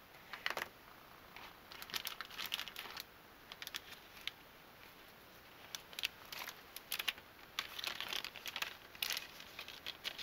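Clear plastic packaging bag crinkling as it is handled, in irregular bursts of crackle.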